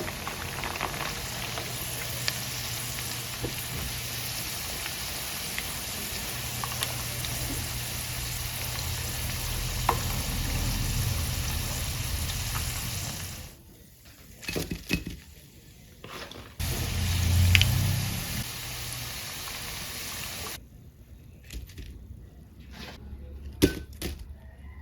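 Food sizzling as it fries in hot oil, a steady hiss that cuts off abruptly about halfway through. Scattered sharp clicks and knocks of utensils follow, with another brief stretch of sizzling.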